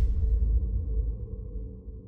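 Deep low rumbling tail of a cinematic logo sting, fading out steadily.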